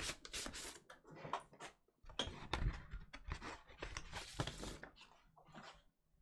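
Paper inserts and card record sleeves rustling and crinkling as they are handled and shuffled through, with a few soft knocks.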